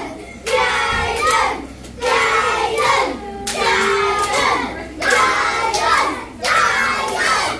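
A group of children singing together in phrases of about a second each, with hand-clapping.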